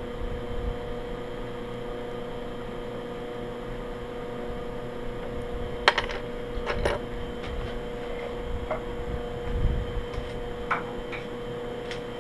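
Steady hum from shop machinery with a few sharp metallic clicks, the loudest about six seconds in, as the boring head on a milling machine is adjusted.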